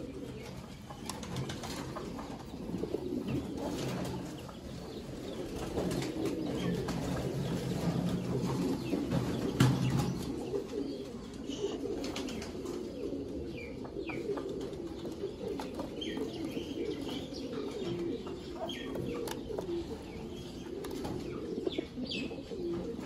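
Domestic pigeons cooing, a continuous low murmur, with scattered brief high chirps.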